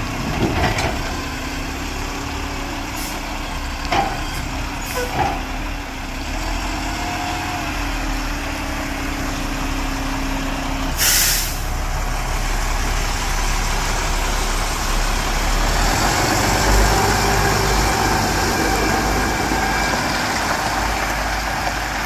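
Mack front-loader garbage truck: a few metal clanks from the forks and dumpster in the first seconds, a steady hum, and a short sharp air-brake hiss about eleven seconds in. After that the diesel engine runs louder as the truck pulls away.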